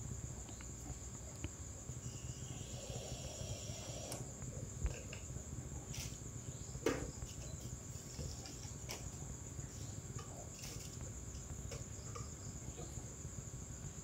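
Steady high-pitched cricket trill, with a few faint taps and knocks.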